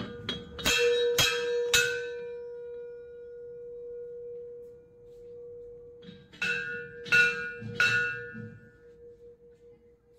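Large hanging temple bell struck repeatedly by its clapper: a quick run of about five clangs, a long ring that slowly dies away, then four more clangs a few seconds later.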